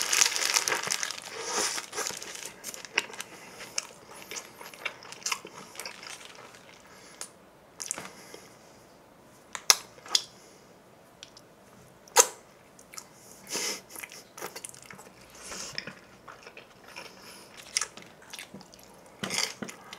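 A man biting into and chewing a double bulgogi burger: soft crunches and wet mouth smacks, some sharp, scattered irregularly. The paper wrapper crinkles as he takes the bite at the start.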